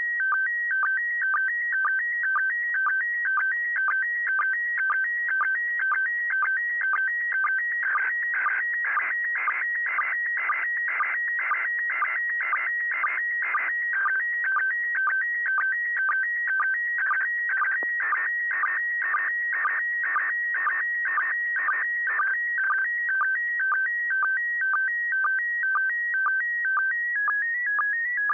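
Slow-scan TV (SSTV) image signal from the International Space Station in PD120 mode, received on 145.800 MHz FM through an Icom IC-9700: a steady warbling stream of tones with a regular beat about twice a second, over faint receiver hiss.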